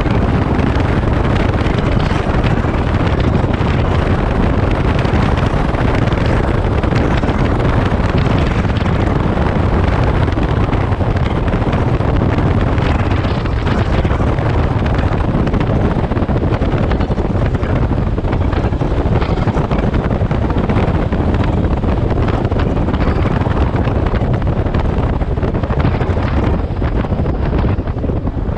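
Loud, steady wind noise on the microphone of a moving motorcycle, with the Daelim Daystar's small 125 cc V-twin engine running underneath at a steady cruising speed.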